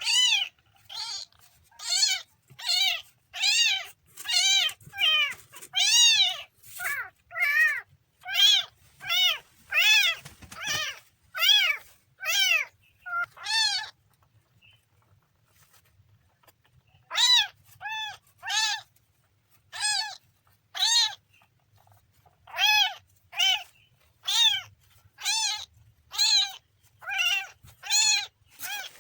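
A kitten meowing over and over in short, high, rising-and-falling calls, about one or two a second, falling silent for a few seconds midway before starting again.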